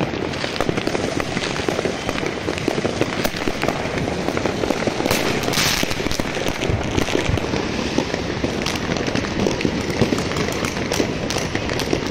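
Dense, continuous crackle of many fireworks and firecrackers going off at once: countless small bangs and pops with no pause, and a louder, hissier burst about five seconds in.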